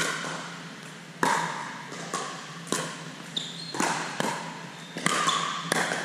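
Pickleball rally: about seven sharp pops of paddles striking a plastic pickleball and of the ball bouncing on the court, a second or less apart, each echoing in a large gym.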